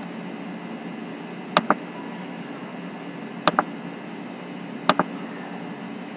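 Computer mouse button clicks: three quick pairs of clicks, spaced a second or two apart, over a steady low hum and hiss.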